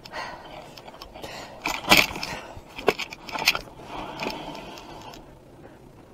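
Clatter and scraping of a dog sled's metal snow hook being handled and set in the snow, with several sharp knocks and one click; the sounds stop about five seconds in.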